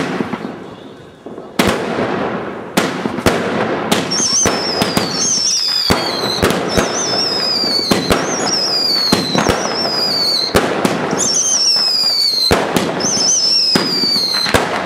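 Jaco 'Otterlo by Night' 56-shot, 500-gram fireworks cake firing: a sharp bang at the start, then shot after shot with crackle between. From about four seconds in, a high whistle falls in pitch with each shot, about once a second.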